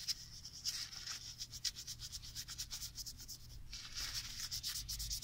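Paper tissue rubbed quickly back and forth over a CPU's metal lid, wiping off old thermal paste: a run of fast scratchy strokes that pauses briefly a little before four seconds in, then resumes.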